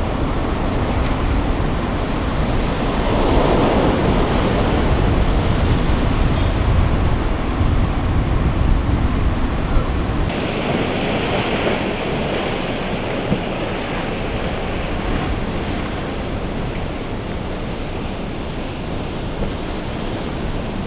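Storm-driven surf washing in and breaking on the shore, with wind rumbling on the microphone. About halfway through the deep rumble drops away and a brighter hiss of water takes over.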